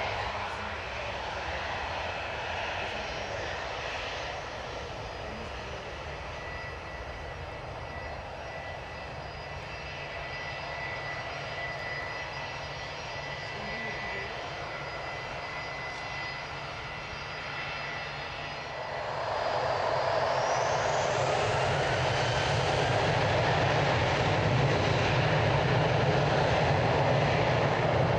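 Boeing 737-800's CFM56 turbofan engines running at low taxi power with a steady whine. About two-thirds of the way in they spool up with a rising whine and grow much louder: the engines going to takeoff thrust as the takeoff roll begins.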